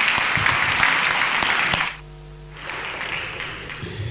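Audience applauding, cutting off abruptly about two seconds in. A short held musical chord follows, then fainter room noise.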